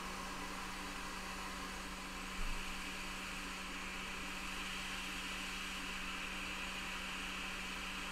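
Steady hiss with a low hum underneath. A single brief knock comes about two and a half seconds in, after which the hum drops away and the upper hiss grows a little stronger.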